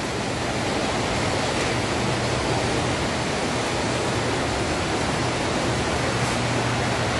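Steady, even running noise of the toy-train layout and its motorized model roller coaster, with a low steady hum under it.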